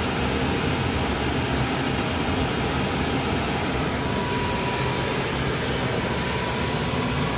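Steady air-handling and equipment noise in a business jet's cockpit, an even whooshing hum from cooling fans and running machinery. A faint thin whine comes in about five seconds in.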